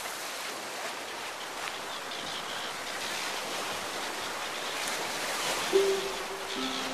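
Steady rushing water noise, with a few long held music notes coming in near the end.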